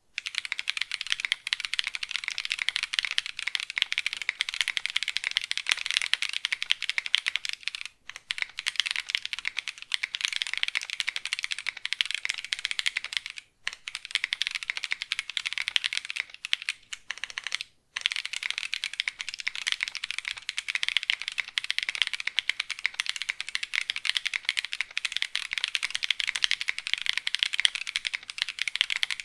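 Continuous fast typing on a mechanical keyboard fitted with kineticlabs Salmon tactile switches (polycarbonate housings, POM stems, lightly lubed), giving a dense stream of sharp key clacks. The typing pauses briefly three times.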